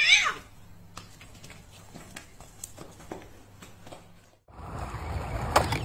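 A tabby cat meows once, a loud cry that rises and then falls, ending about half a second in. Faint scattered taps and scuffs follow, and after about four and a half seconds a steady background rush with a couple of clicks takes over.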